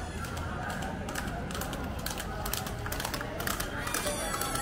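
Irregular sharp clicks in quick succession over the low murmur of a roadside crowd.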